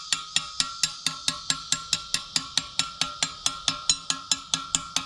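Hammer tapping a metal cover into place on a tractor's front wheel hub: a rapid, even series of light metallic strikes, about four or five a second, each with a short ring.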